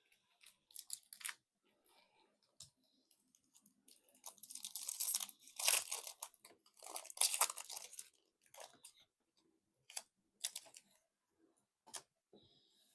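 Foil Magic: The Gathering booster pack wrapper being torn open and crinkled: two stretches of crackling about four and seven seconds in, with a few short clicks and rustles around them.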